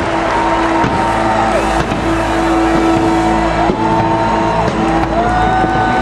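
Large stadium crowd cheering over loud music from the PA, with long held notes and whistles that glide up and down.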